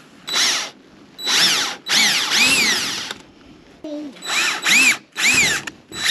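Power drill run in a series of short trigger bursts, about seven in all, driving into the plastic of a kayak mount. The motor's pitch rises and falls with each burst.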